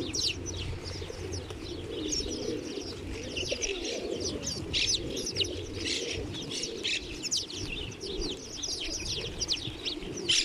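A flock of house sparrows chirping busily and constantly, many short high calls overlapping, as they crowd onto a hand to feed. A lower wavering sound sits beneath the chirps.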